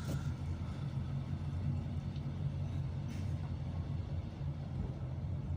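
Steady low rumble of a freight train running on the rails, heard from aboard.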